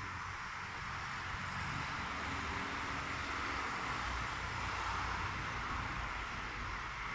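Steady rushing noise of distant road traffic, swelling a little toward the middle and easing near the end.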